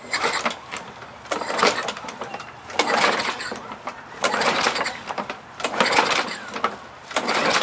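Four-stroke push mower being pull-started: about six recoil-rope pulls, roughly one every second and a half, each a short rasp of the rope and the engine turning over, and the engine does not catch.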